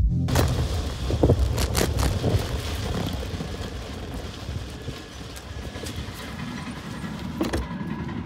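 Riding noise from a fixed-gear bicycle on Panaracer Gravelking EXT gravel tires over a rutted, sandy dirt road. Steady wind on the microphone runs through it, with repeated knocks and rattles as the bike jolts over the ruts.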